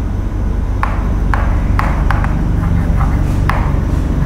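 Writing on a classroom board: about eight short, sharp taps and strokes over a few seconds, over a steady low hum.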